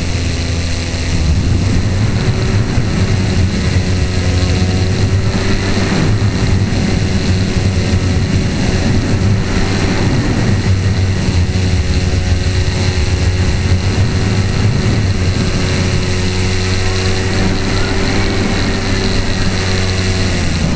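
Small propeller motor of a radio-controlled model aircraft running steadily at cruising throttle, heard up close from the onboard camera, with a constant hum and rushing air.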